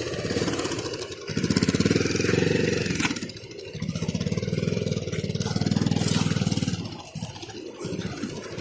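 Bajaj Pulsar 220's single-cylinder engine revving in two long, loud bursts, about a second in and again from about three and a half seconds in. It drops back to a lower running sound between them and near the end.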